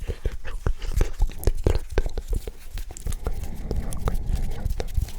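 Close-miked ASMR hand sounds: fingers and palms moving and rubbing right at the microphone, making a quick, irregular run of crisp clicks over soft rustling.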